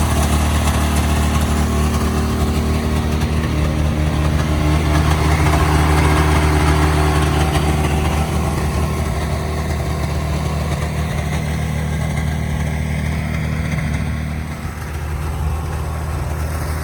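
Snowmobile engine running at a steady pitch while riding, a constant hum over a wide rush of noise.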